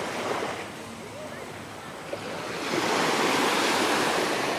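Surf washing onto the beach, a steady rush that swells louder a little under three seconds in.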